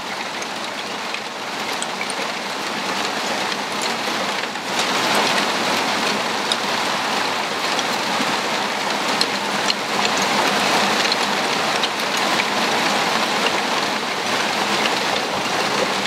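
Hail shower coming down on grass and foliage: a steady hiss scattered with small sharp ticks, growing heavier about five seconds in.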